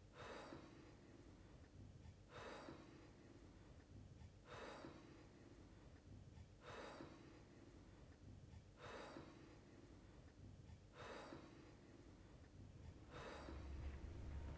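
A person breathing audibly and slowly, about one breath every two seconds, seven breaths in all. A low hum comes in near the end.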